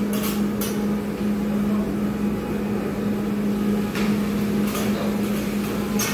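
Steady low mechanical hum in a restaurant kitchen. About four seconds in and again near the end come a few short metal clinks of the cook's utensils against the flat-top hibachi grill.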